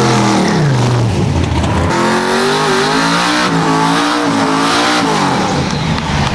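Race car engines lifting off the throttle after a pass: the engine note falls in pitch over the first two seconds. Another engine then holds a wavering pitch and drops away about five seconds in, leaving a low rumble.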